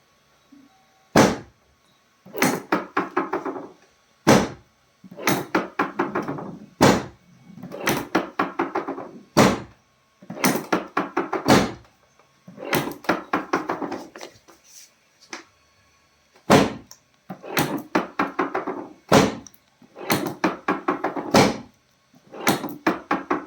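A repeating pattern of a single sharp knock followed by a burst of rapid tapping, recurring about every two and a half seconds.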